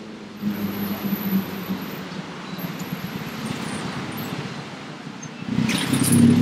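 Street traffic: vehicle engines running and passing in a steady wash of road noise, growing louder near the end as a vehicle goes by close.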